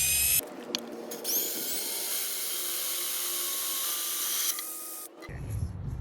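Power drill with a carbide-tipped bit drilling into thin ceramic. A short burst of drilling ends just after the start; the drill then spins up again about a second in, its pitch rising to a steady high whine, and stops about three seconds later.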